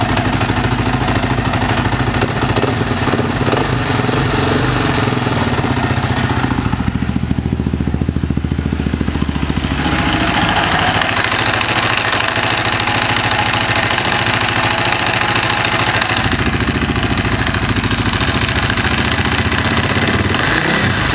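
Husaberg FE650e's single-cylinder four-stroke engine running with a clattering noise, which the owner traced to a loose crank gear. About ten seconds in the sound turns brighter and harsher, and it settles back around sixteen seconds.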